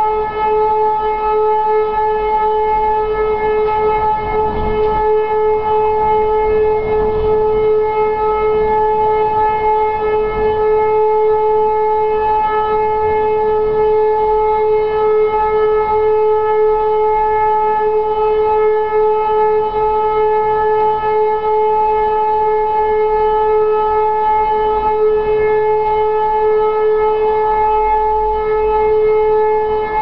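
E57 electromechanical civil-defence siren sounding one steady, unbroken tone held at a single pitch: the German all-clear (Entwarnung) signal.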